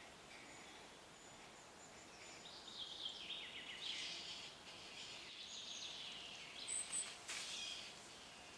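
Pine martens calling high in a tree during mating: a faint run of rapid, repeated high chattering calls a few seconds in, then two short very high chirps and a brief click near the end, over quiet forest ambience.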